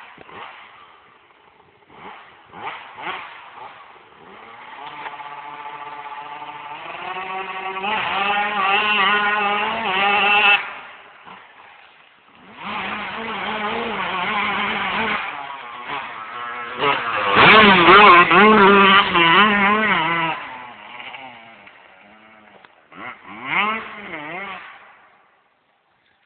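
Yamaha YZ125 two-stroke motocross bike ridden hard on a dirt track, its single-cylinder engine revving up and down through the gears. It swells twice to a loud pass and fades away between, with short throttle blips near the start and near the end.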